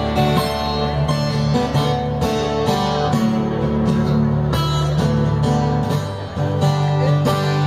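A band playing an instrumental passage between sung lines of a country ballad, led by strummed acoustic guitar.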